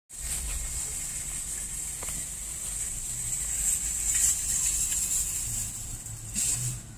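Steady car-cabin noise: a low rumble with a constant high hiss over it.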